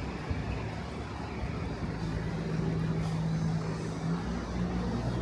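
Airport transfer bus running steadily, a low engine hum joining the rumble about two seconds in.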